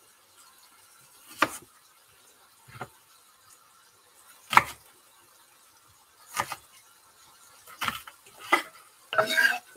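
Knife cutting an onion into wedges on a wooden chopping board: about seven separate knocks of the blade coming down onto the board, a second or two apart.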